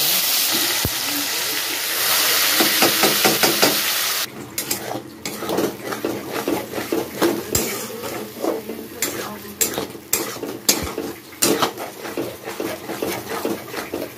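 Wet spice paste hitting hot oil in a kadai, sizzling loudly for about four seconds, then dying down. After that a spatula scrapes and clicks against the pan as the paste is stirred and spread, with softer frying underneath.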